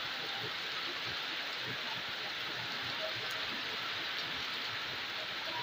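Heavy rain pouring steadily onto a paved street and the surrounding houses, an even hiss with no let-up.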